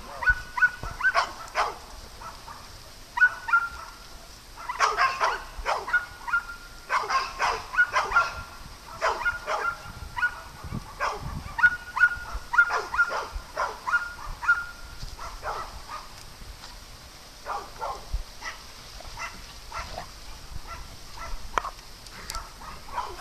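Dogs barking and yipping in rough play, in quick bursts of short, sharp calls with brief high-pitched whines among them, easing off for a moment about two-thirds of the way through.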